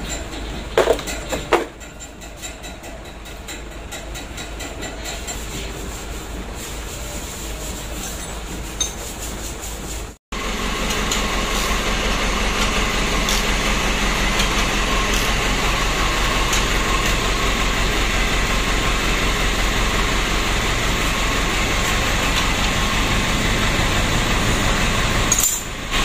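Two sharp metal clinks of hand tools about a second in, over a low steady hum. After a short break about ten seconds in, a louder steady machine noise runs on, with no speech over it.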